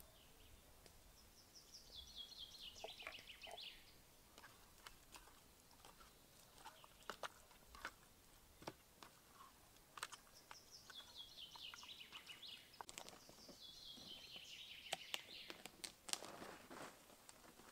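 A songbird's faint song: three phrases, each a quick run of high notes falling in pitch over about two to three seconds. Light scattered clicks and taps come between them, with a short rustle near the end.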